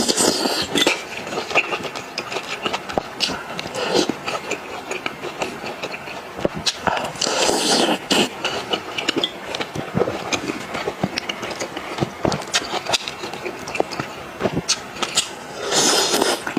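Close-up eating sounds of seafood in marinade: wet chewing and sucking with many small clicks, and a longer slurp about halfway through and again near the end.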